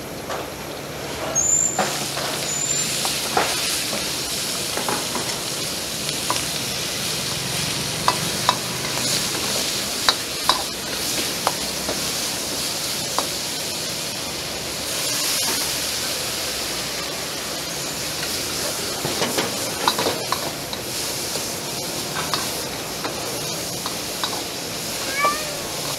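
Sliced pig heart sizzling in hot oil in a wok as it is stir-fried, a metal ladle scraping and knocking against the pan. The sizzle grows loud about two seconds in.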